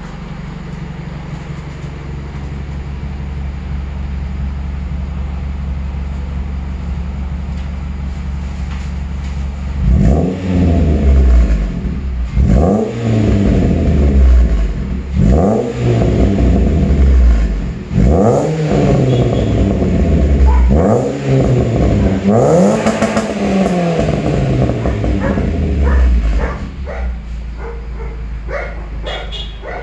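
2005 Renault Mégane II 1.6 petrol four-cylinder running through a Powerflow aftermarket exhaust with a deep, steady idle note. About ten seconds in it is revved in about six quick throttle blips, each rising and falling in pitch, then it settles back to idle.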